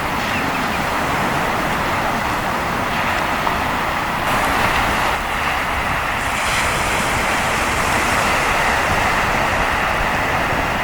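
Steady rushing of sea surf and wind, with a brighter hiss swelling in about four seconds in and again about six seconds in as waves wash.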